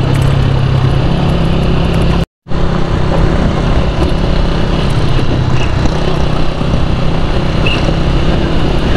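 Honda CG125 motorcycle's single-cylinder four-stroke engine running steadily while riding, with wind rush on the microphone. The sound cuts out for a moment about two and a half seconds in.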